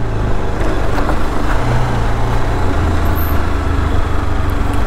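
Motorcycle engine running steadily as the bike rides along a dirt trail, its low hum under a constant rush of noise.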